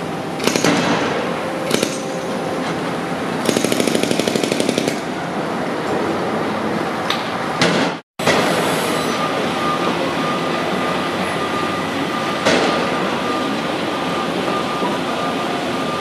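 Construction-site noise: a steady din of machinery with scattered sharp metal clanks. About three and a half seconds in comes a short burst of rapid hammering, about ten blows a second for a second and a half. The sound cuts out for a moment about halfway.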